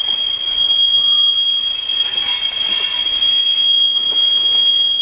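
Passing freight train giving off a loud, steady, very high-pitched squeal on one unchanging note, over the rumble of its wheels on the rails. The filmer wonders whether it is a failing wheel bearing.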